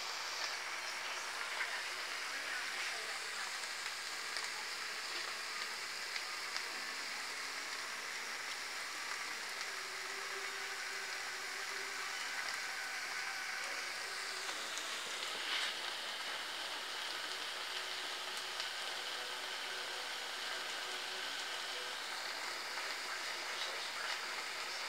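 Seafood paella simmering and sizzling in a wide pan: a steady hiss dotted with small crackles.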